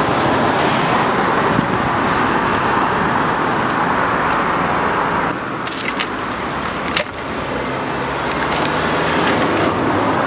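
A 125cc single-cylinder pit bike engine running at a steady idle, with several sharp metallic clicks about halfway through, after which the sound drops slightly.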